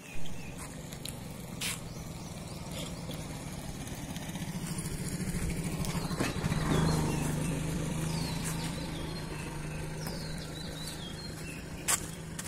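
Bullock cart rolling with a steady engine hum from a motor vehicle, growing louder to about halfway through and then easing off, and a few sharp knocks.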